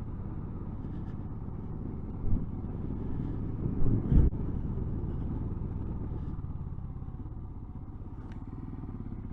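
Motorcycle engine running steadily while riding, its low exhaust pulse constant, with a couple of short thumps about two and four seconds in.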